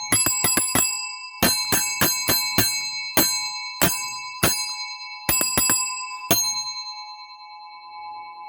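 A small metal bell struck rapidly over and over in irregular clusters, each strike ringing with the same bright tone. After the last strike, about two seconds before the end, the ring is left to fade away.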